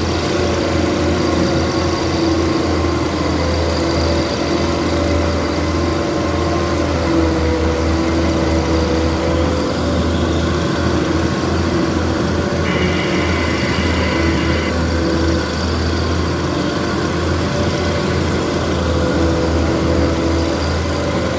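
MAZ log truck's diesel engine running steadily, heard from inside the cab while the truck is towed slowly through mud. A brief higher tone sounds for about two seconds around the middle.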